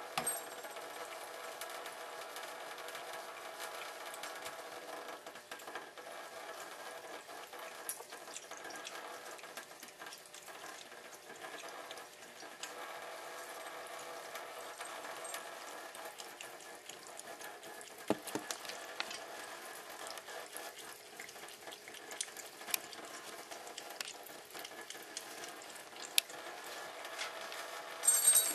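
Thin stream of tap water trickling from a kitchen faucet into a stainless steel sink, a steady splashing hiss, with a few sharp clicks scattered through and a brief cluster of clicks near the end.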